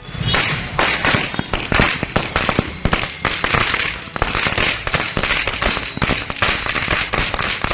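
A long chain of firecrackers laid out on the road going off, a rapid, irregular string of sharp bangs with no let-up.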